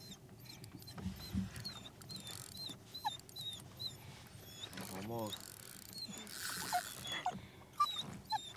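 A dog whining in short high whimpers, with one longer wavering whine about five seconds in. Under it, a light repeating squeak from a spinning reel being cranked as a fish is played.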